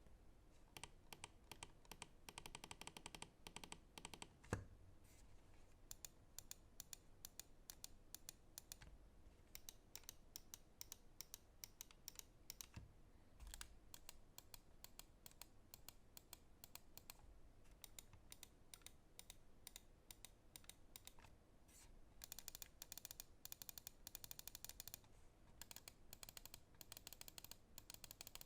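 Lamzu Atlantis Mini gaming mouse buttons clicked over and over in quick runs, quiet sharp clicks with short pauses between runs. One louder knock comes about four and a half seconds in.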